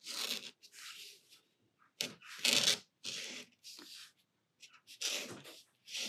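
Posca white paint marker nib scratching across textured watercolour paper as leaf outlines are drawn: a string of short scritchy-scratchy strokes, the loudest about two and a half seconds in.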